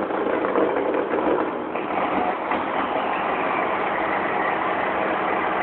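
1994 12-valve Cummins inline-six diesel idling roughly just after startup, with air still being purged from the fuel lines after an injector change.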